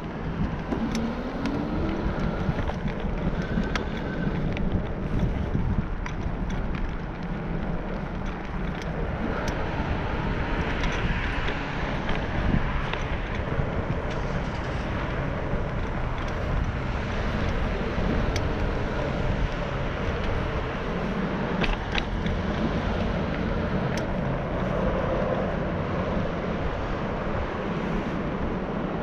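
Steady wind rush on the microphone over the rolling noise of wheels on asphalt, with a few scattered clicks and a brief rising tone about a second in.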